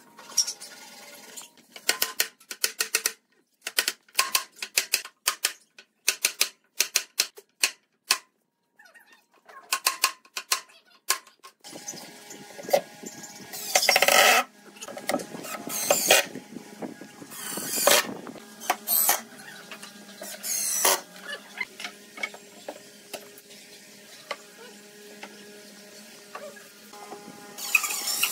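Clusters of sharp wooden knocks during the first dozen seconds, as dovetailed pine boards are worked together. Then a Makita cordless impact driver drives screws into the pine in four or five short bursts, each about a second long, the last one near the end.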